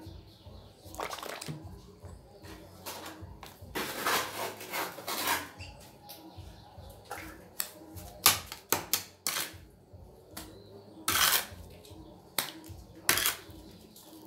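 Wet cement mortar being scraped up and spread by trowel and template on a mould and worktable: irregular scraping with several sharp metallic clinks and knocks.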